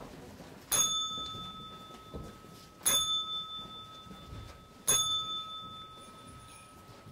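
A small bell at the typewriter table struck three times, about two seconds apart, each strike ringing on clearly for a second or two.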